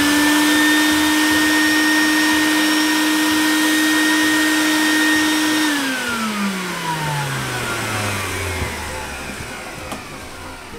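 Small electric motor running at a steady, high whine, then switched off about halfway through and winding down, its pitch gliding down over a few seconds.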